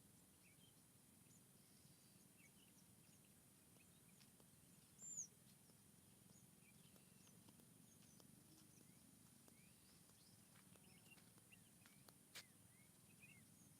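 Very faint forest ambience with scattered small bird chirps and whistles. One clearer high whistle falls in pitch about a third of the way in, and a single sharp click comes near the end.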